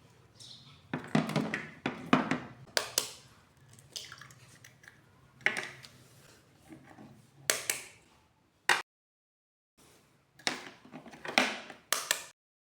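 Kitchen food-preparation sounds: a series of short crackling, squishing handling noises and a sharp click or two, broken by two abrupt cuts to dead silence.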